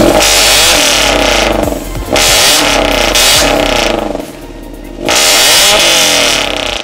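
Subaru BRZ's 2.0-litre flat-four revved hard three times through a Fi Exhaust aftermarket exhaust. Each rev is a loud, rasping blast that rises and falls in pitch, with short lulls between them.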